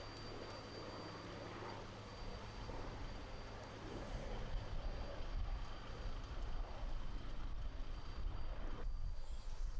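Steady low outdoor rumble with a faint constant hum, growing louder and more uneven about four seconds in.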